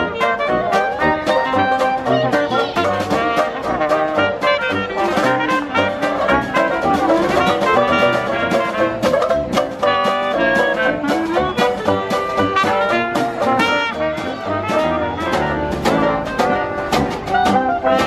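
Live Dixieland jazz band playing an upbeat tune: clarinet, trumpet and trombone over tuba, banjo and snare drum.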